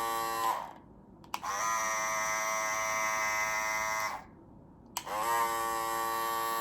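Andis Cordless Master cordless hair clippers switched on and off in turn, giving a steady high-pitched buzz that rises briefly as the motor spins up. One run stops about half a second in, another runs from about 1.5 to 4 seconds, and a third starts about 5 seconds in.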